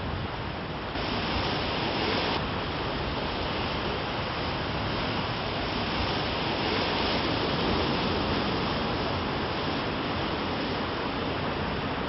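Steady rush of surf breaking on a sandy beach, mixed with wind, swelling about a second in and again around the middle.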